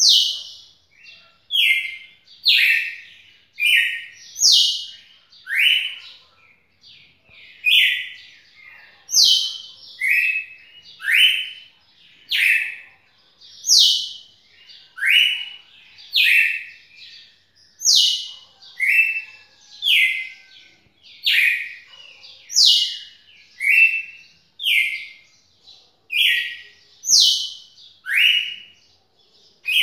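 Red-cowled cardinal (galo-de-campina) singing: a long, unbroken run of loud, clear whistled notes about one a second, alternating between higher and lower pitches, some notes sliding.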